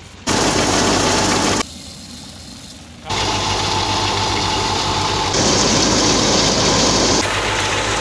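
Wheat thresher running, a loud steady din of machinery with an engine hum underneath. It cuts in and out abruptly: loud for the first second or so, quieter for about a second and a half, then loud again from about three seconds in, growing harsher and brighter for a couple of seconds near the middle.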